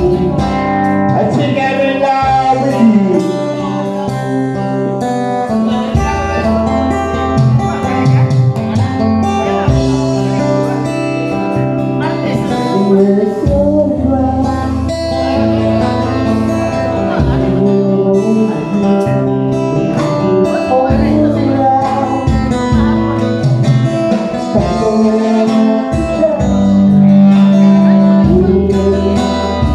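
A live band playing, with guitar to the fore over bass and drums and some sliding, bent notes, and no sung words.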